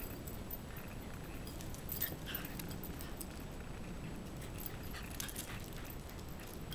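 Shiba inu dogs romping and play-fighting on pavement, with scuffling clicks and a brief high dog vocal sound about two seconds in, over steady low background noise.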